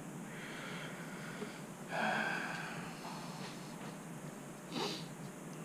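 A man breathing through his nose during a pause: soft breaths, a longer, louder exhale about two seconds in, and a short, sharp one near the end.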